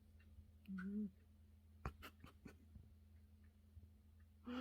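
Ragdoll kitten making two short, low snore-like murmurs in its sleep, one about a second in and one at the very end, with a few faint clicks between.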